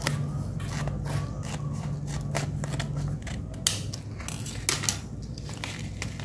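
Steel scissors snipping through a paper seed packet: a string of sharp, irregular snips.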